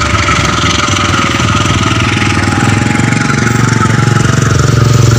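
Passenger coaches of a departing train rolling past close by: a loud, steady running noise of wheels on rail with a rapid, even throbbing underneath that grows heavier near the end.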